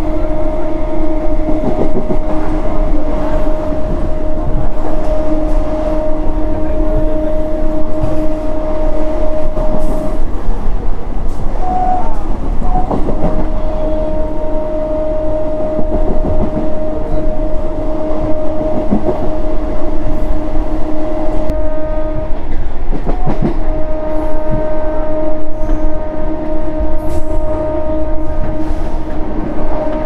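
Electric multiple unit (EMU) local train horn blowing in long, steady blasts, cutting off twice for a few seconds and then starting again. Underneath runs the constant rumble and clatter of an EMU at speed on the track.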